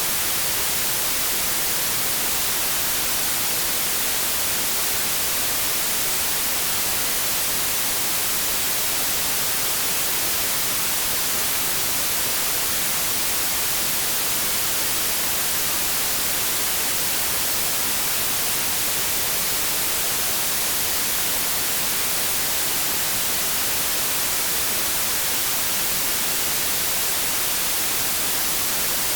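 Continuous synthetic white noise: an even, steady hiss, strongest in the treble, with no change in level.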